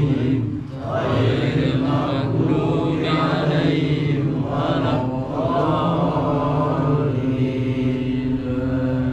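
A group of men chanting Islamic devotional verses together in slow, drawn-out phrases, with long held notes.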